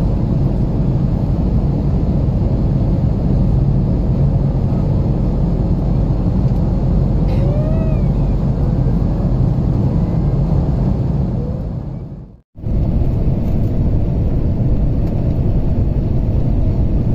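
Steady rumble of jet engines and rushing air heard inside an airliner's cabin. It fades out about twelve seconds in and cuts straight back in as the cabin noise of the plane rolling along the runway after touchdown.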